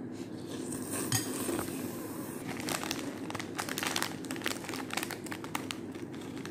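Mealtime eating sounds: metal forks clinking and scraping against ceramic bowls, with a dense run of short crackles in the middle as fried chicken is bitten and chewed.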